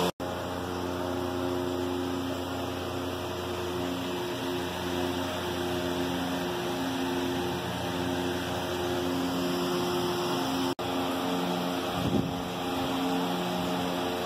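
Steady machine hum made of several held low tones, cutting out for an instant just after the start and again about eleven seconds in.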